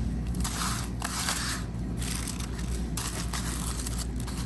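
Handling noise from costume jewelry chains being sorted by hand: a run of soft rustling and scraping swishes, with a low steady hum underneath.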